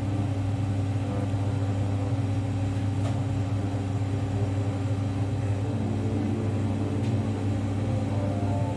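A steady low hum, with soft held background-music notes that change pitch after about six seconds.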